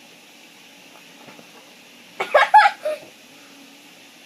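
A boy's brief high-pitched laugh in about three quick pulses, about two seconds in, through a mouthful of marshmallows.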